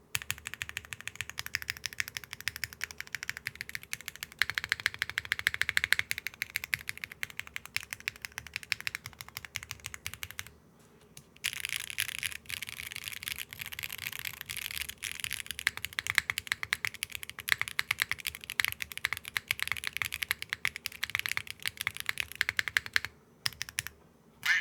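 Fast typing on a Neo60 Core keyboard with Akko Creamy Yellow Pro V5 linear switches, a carbon-fibre plate, GMK keycaps and no foam: a dense run of medium-toned keystrokes with a soft bottom-out, neither clacky nor thocky. The typing breaks off for about a second near the middle, stops a couple of seconds before the end, then a few last keystrokes.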